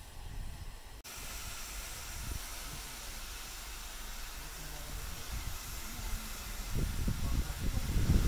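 Standing LSWR steam locomotive hissing steadily as it sits in steam, after an abrupt edit cut about a second in. A low rumble grows louder near the end.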